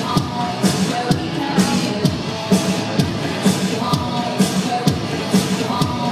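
Music with a steady drum beat, about two beats a second, and a short melody that repeats.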